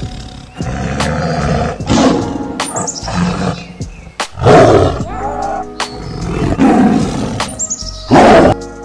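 Big cat roaring repeatedly, about six loud roars, the loudest about four and a half seconds in and near the end, over background music.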